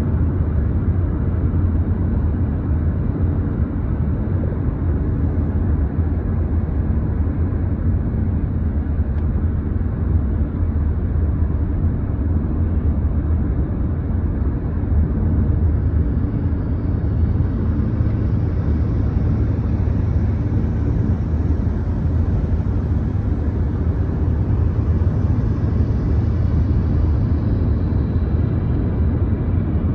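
Steady low rumble of a car driving at road speed, heard from inside the cabin, with extra hiss building up from about halfway through and fading near the end.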